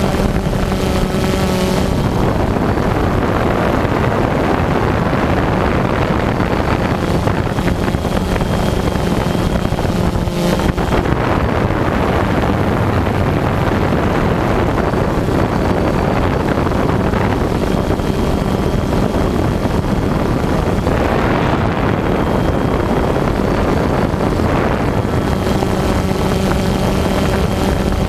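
Steady buzz of a DJI Phantom quadcopter's electric motors and propellers in flight, heard close up from the GoPro mounted on it, with wind rushing over the microphone. The motor pitch is clearer near the start and the end.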